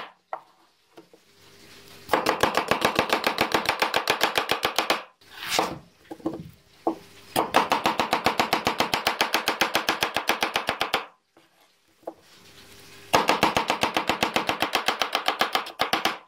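Kitchen knife rapidly chopping an onion on a plastic cutting board. There are three runs of fast, even strokes, about ten a second, with short pauses between them.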